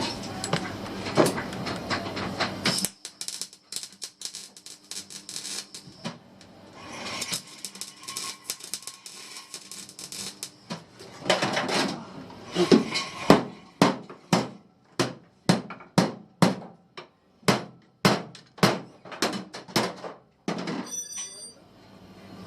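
Sheet-metal work on a car floor: stretches of dense noisy crackle, then a run of sharp metal strikes, about two a second, in the second half.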